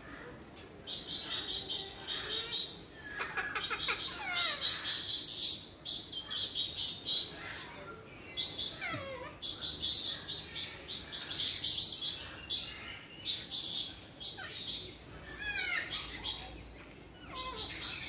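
Parrots calling: spells of rapid, high, scratchy chatter that come and go, with several short calls that fall steeply in pitch.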